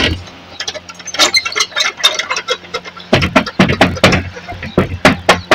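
A hand knocking repeatedly on a wooden panelled door, in short irregular runs of knocks, louder about three and five seconds in.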